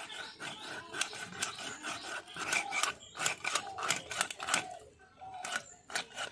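Scales being scraped off a rupchand (silver pomfret) by rubbing the fish against the edge of a curved floor-mounted blade (bonti). It makes a run of quick rasping strokes, about two to three a second, with a short pause about five seconds in.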